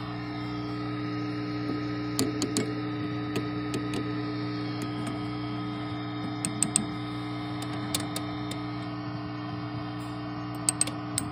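Matchless Lightning Reverb tube guitar amp idling with a steady mains hum, with a few sharp ticks scattered through it: the background noise the amp is in for, in its reverb circuit.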